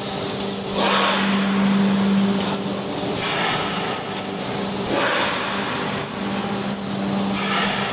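Automatic paper egg tray machine line running: a steady machine hum with a hiss that swells and fades about every two seconds.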